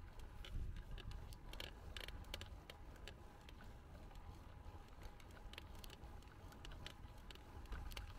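Bicycle rolling along a paved path: a low, steady rumble of tyres and wind, with many small irregular clicks and ticks from the bike.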